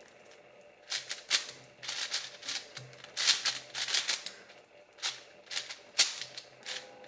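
Moyu AoChuang 5x5 speedcube being turned quickly by hand: bursts of rapid plastic clicking and clacking from the layers, starting about a second in, with short pauses between bursts. The cube is new and unlubricated, so it turns dry.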